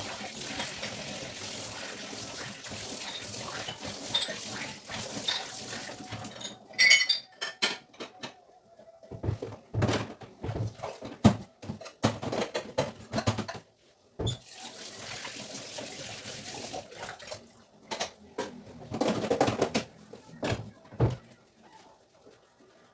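Water running for several seconds, then a series of knocks and clatters of dishes and utensils.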